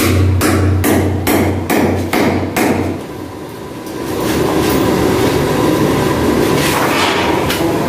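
Hammer striking a chisel into concrete, a steady run of sharp blows about two and a half a second that stops about three seconds in. A steady rough noise follows, with a couple more strikes near the end.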